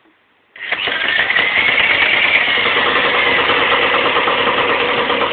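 Zündapp moped two-stroke engine with a Corsa exhaust, starting up suddenly about half a second in and then running steadily at a fast idle, with a high pitch that rises slightly and then settles.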